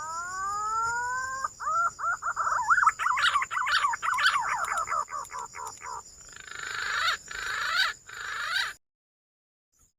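Green pigeon (punai) call: a rising whistle, then a quick run of wavering whistled notes, then a harsher rasping stretch with falling sweeps that cuts off abruptly about nine seconds in.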